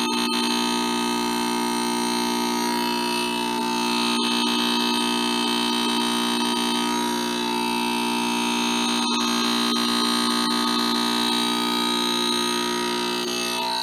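Grinding machine running steadily: the spindle and spinning grinding wheel give a constant hum and whine with several steady tones, while the feed handwheel is turned by hand, with a few faint clicks.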